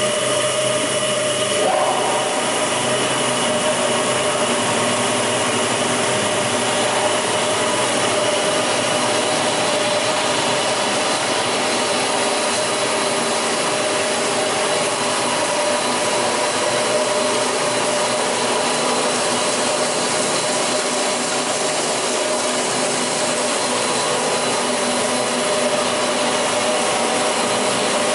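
REMA DMGA 35 double-blade edging saw running with no board in it: a steady whirring noise with a few held tones, settling to an even pitch about two seconds in.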